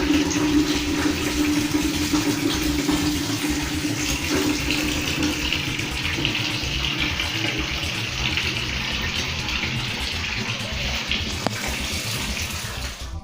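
Water running steadily into a bucket as it fills, an even rushing splash that grows slowly quieter.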